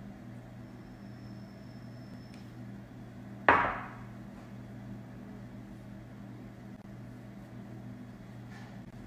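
A single sharp knock about three and a half seconds in, a small bowl set down on the kitchen counter, over a steady low hum.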